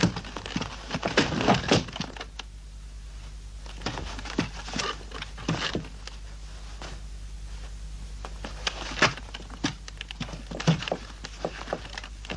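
Scattered clicks, taps and clatter of small hard objects, a telephone and tools being handled, in a small room over a steady low hum.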